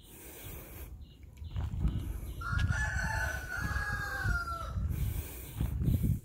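A rooster crowing once: one drawn-out call of a little over two seconds that drops in pitch at its end. Low rumbling thumps run underneath, loudest just before the end.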